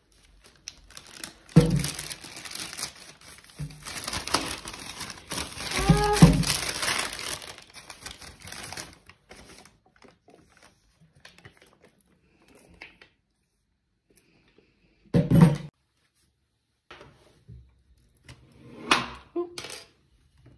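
A thin plastic shopping bag rustling and crinkling as bottles are taken out of it, for about the first nine seconds. After that it is mostly quiet, with one thump about fifteen seconds in and a few knocks near the end.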